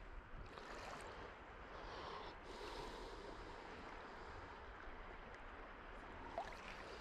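Faint, steady wash of shallow sea water lapping.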